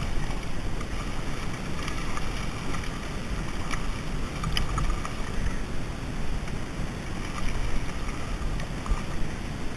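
Wind rumbling on the microphone over water lapping in the shallows, with a couple of faint ticks about four seconds in.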